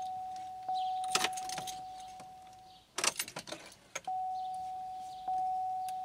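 Pontiac Aztek's dashboard warning chime dinging about once a second. It breaks off for about a second amid clicks and a jangle of keys as the ignition key is turned off and back on, then resumes: the ignition is being cycled without cranking to prime the fuel rail.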